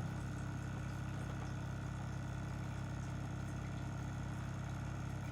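Zacro battery-powered automatic electric ball pump running with a steady, unchanging hum as it inflates a ball, close to its preset 11 psi automatic cutoff.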